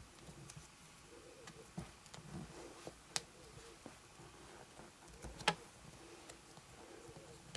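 Quiet handling of a vinyl doll arm and its small plastic joint connector: faint rustling with a few light clicks, two sharp ones standing out about three seconds in and about five and a half seconds in, the second the loudest.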